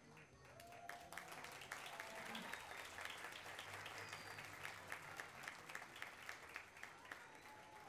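Audience applauding at a curtain call; from about the middle the clapping falls into a steady beat of about three claps a second.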